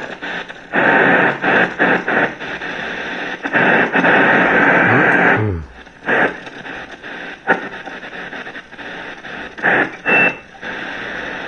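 FM radio static hiss from the iBELL Castor FM660BT's speakers as it is tuned across the band, the noise cutting out and changing abruptly several times as the dial moves between stations, with a brief falling sweep about halfway through.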